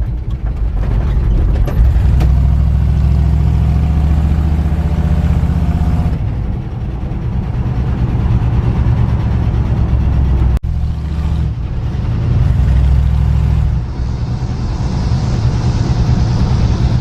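1968 Ford F-100's 360 V8 running as the truck is driven, a steady low engine rumble mixed with road noise, with a brief sharp dropout about ten seconds in.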